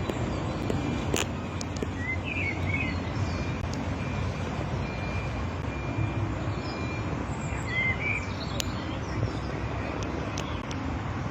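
Outdoor ambience: a steady low rumble, with birds chirping a few times, about two and a half seconds in and again about eight seconds in.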